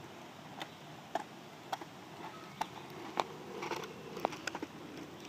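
Caster board's small wheels rolling over rough asphalt, with several sharp clicks and knocks at uneven intervals as the rider shifts on the decks.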